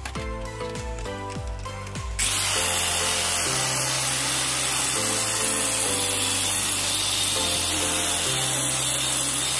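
Angle grinder with a flap disc grinding and smoothing a cast-aluminium engine cover, a steady high hiss over the motor. The grinding eases in the first couple of seconds, then comes back in full about two seconds in. Background music plays throughout.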